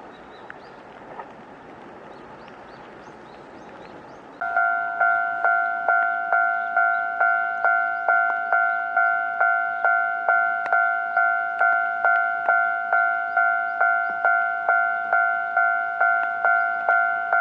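Japanese railway level-crossing warning bell starts about four seconds in, ringing a steady two-pitch electronic ding about twice a second, signalling that a train is approaching. Before it there is only faint background noise.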